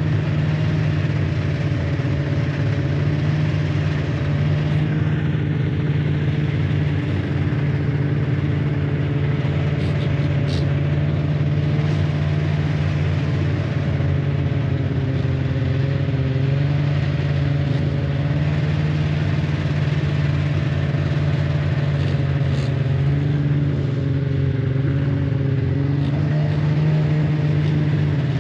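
Snowmobile engine running at a steady cruising pace, heard from on board, its note holding nearly even with slight rises and dips. A few faint clicks come about ten seconds in.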